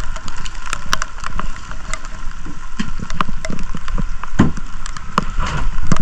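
Rain pattering, with many irregular sharp drips and a few dull thumps mixed in.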